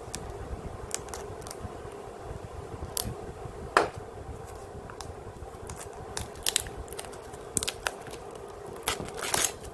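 Plastic shrink wrap being cut and peeled off a hard clear plastic case: scattered crackles and clicks, with one sharp click about four seconds in and denser crackling near the end, over a steady low hum.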